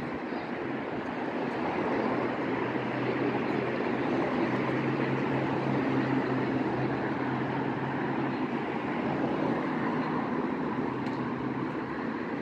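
City street traffic: a steady rush of passing cars, with a low engine hum through the middle.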